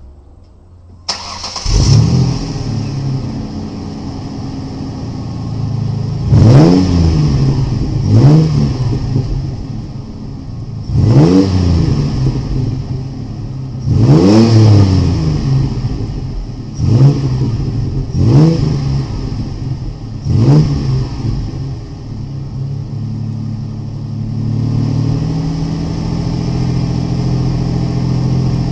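Car engine with a Gibson aftermarket exhaust system starting about a second in and settling to idle. It is then blipped seven times, each rev rising and dropping back to idle. Near the end it holds a slightly raised, steady speed.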